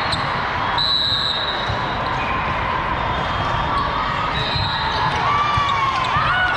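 Volleyballs being hit and bouncing on a gym floor, sharp knocks over a steady din of chatter in a large hall, with a few brief high squeaks.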